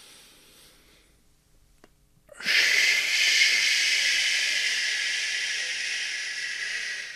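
A man breathes in faintly through the nose, then about two and a half seconds in exhales a long, loud "shhh" hiss, the Qigong "SH" wood (liver) healing sound, made with the tongue curved up towards the palate. The hiss slowly fades over about four and a half seconds.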